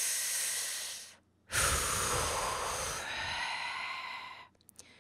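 A long, beleaguered sigh, breathed close to the microphone: a breath of about a second, a brief pause, then a longer breath that fades out near the end.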